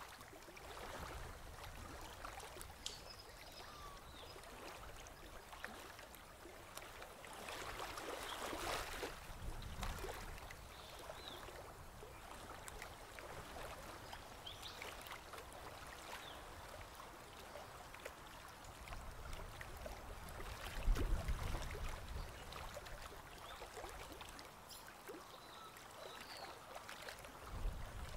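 Faint river water lapping and trickling, with a brief low rumble about two-thirds of the way through and another near the end.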